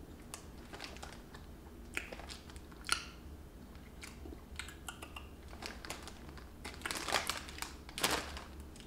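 Scattered crinkling of a plastic snack bag being handled, thickest around seven to eight seconds in, with faint crunching of cheese puffs being chewed.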